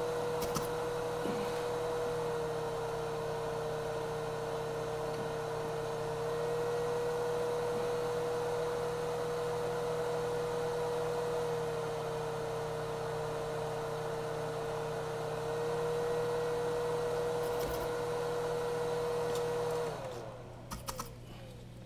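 Hot air rework gun's blower running with a steady whir while heating the processor's solder, then switched off about twenty seconds in, winding down with a short falling pitch; a couple of light clicks follow.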